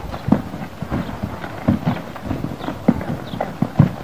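Horse's hooves thudding irregularly in loose sand, a few dull strikes a second, as it steps sideways.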